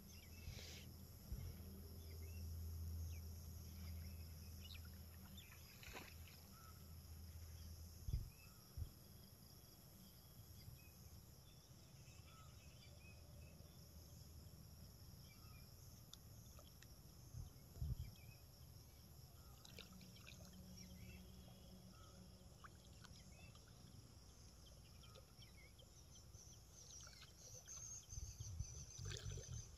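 Quiet outdoor ambience with faint scattered bird or insect chirps. A low hum runs through roughly the first eight seconds, and a few soft thumps come about eight seconds in, around eighteen seconds, and near the end.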